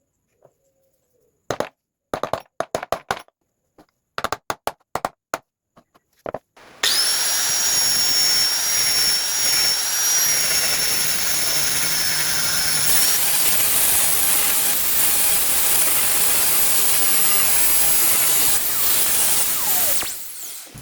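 A run of short sharp knocks, then an electric power tool starts up with a high whine and runs steadily on wood for about thirteen seconds before winding down.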